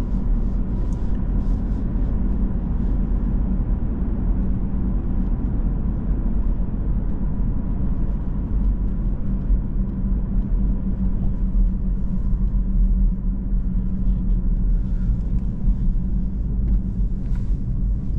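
Cabin noise of a 2017 BMW 116d on the move: a steady low drone from its 1.5-litre three-cylinder diesel mixed with road and tyre noise, heard from inside the car.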